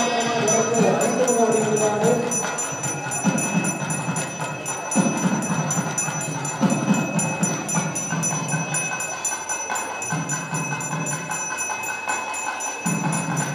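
Live temple ritual sound: music and voices with bells jingling, over a steady high ringing tone.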